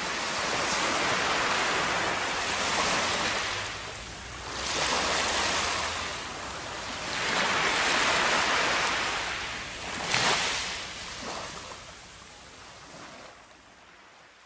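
Ocean surf washing up on a sandy beach, rushing in and drawing back in slow swells about every three seconds, fading away near the end.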